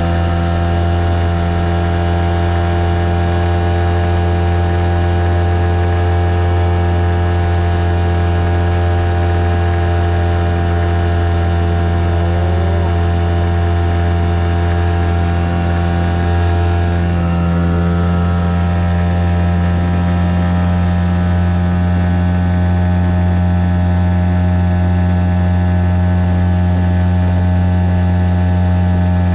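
NS Marine 5 (Tohatsu M5) two-stroke twin-cylinder outboard motor running steadily at speed, pushing an inflatable boat, its note shifting slightly a little past halfway.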